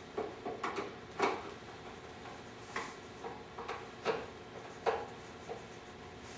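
Scattered light clicks and knocks of wooden furniture panels and their cam-lock hardware being handled and fitted together, irregularly spaced.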